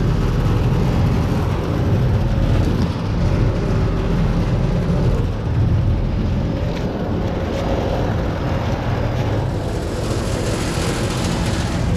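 2010 York 7.5-ton commercial air conditioner running, a steady hum of condenser fan and compressor, with other condensing units running alongside. A hiss grows over the last couple of seconds.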